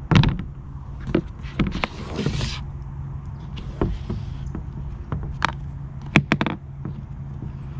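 Pelican 1400 hard plastic case being handled and turned over on a tabletop: a string of sharp knocks and clicks from its shell, handle and latches, with a short scrape about two seconds in.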